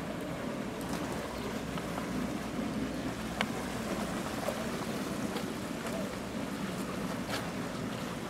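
Steady rushing of a pond aerator fountain churning the water, with a few short sharp clicks and splashes as a hooked fish is played to the net.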